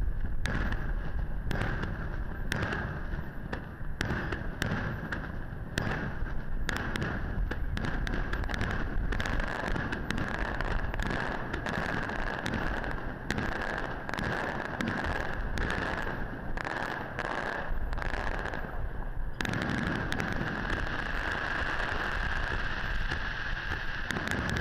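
A star mine fireworks barrage: aerial shells bursting in rapid succession, many bangs close together. About nineteen seconds in, the separate bangs give way to a steadier, continuous noise.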